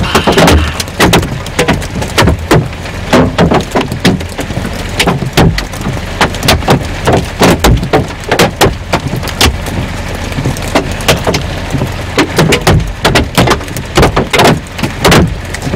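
Large hailstones pelting a vehicle, many sharp hits a second at an irregular pace over a steady low rumble of the storm.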